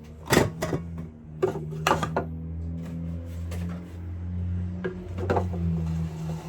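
Sharp clicks and knocks of hard plastic parts being handled and set down, several in the first two seconds and a couple more near the end, over a steady low hum.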